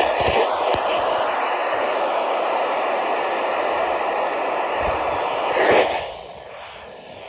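Weather radio receiver putting out loud, steady static hiss between transmissions; the hiss drops away sharply about six seconds in.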